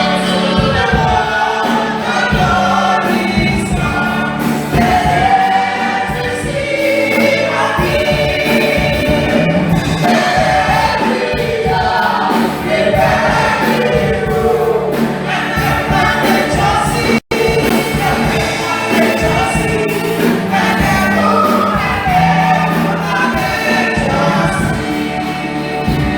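A choir sings a carol with instrumental accompaniment. The sound cuts out for a split second about seventeen seconds in.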